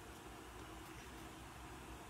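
Very faint room tone with a steady low hum; no tapping or handling sounds.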